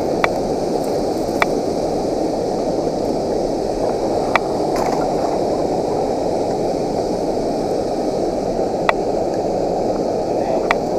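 Steady rushing of water spilling over a river dam and churning in the tailwater, with a few light, sharp clicks scattered through.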